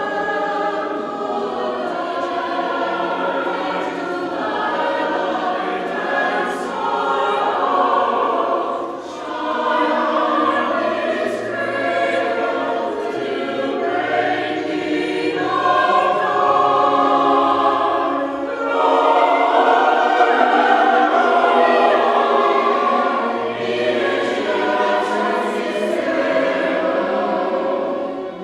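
A choir singing in harmony, held notes that move together from chord to chord, with sharp "s" consonants audible now and then.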